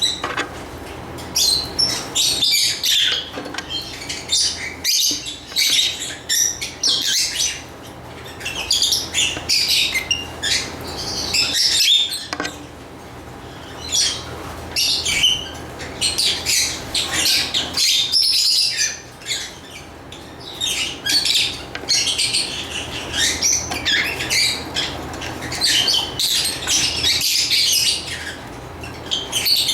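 Lovebirds chirping in rapid, dense, high-pitched bursts, with a few short lulls.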